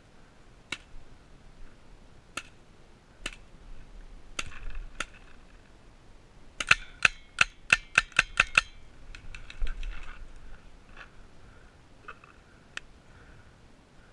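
Paintball marker firing: a few single shots in the first seconds, then a rapid string of about eight shots in two seconds a little past halfway, and a few fainter shots after.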